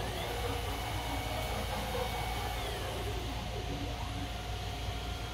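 NEMA 34 closed-loop stepper motors driving the CNC mill's spindle carriage along the fixed gantry: a faint whine rises as the carriage speeds up, holds steady, then falls away as it slows about two and a half seconds in. A steady low hum runs underneath.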